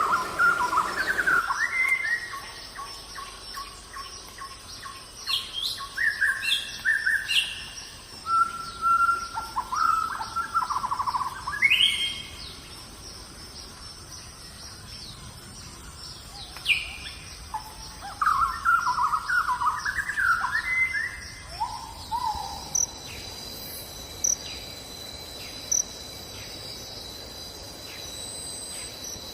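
Several birds calling, with varied chirps, trills and short whistles that come and go. About three-quarters of the way through, a steady high insect buzz with regular ticks takes over as the birds fall quiet.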